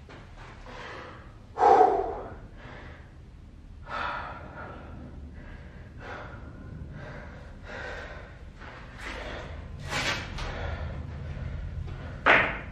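A man panting and gasping for breath after a hard set of burpees, with heavy breaths every few seconds; the loudest comes a little under two seconds in and another near the end.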